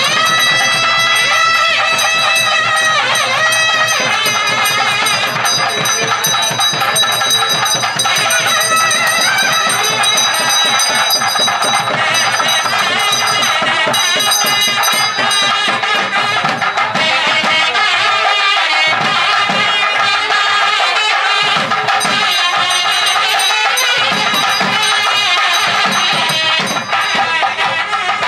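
Traditional Indian music: a wavering, pitch-bending melody over steady percussion. Steady high ringing tones stop about halfway through.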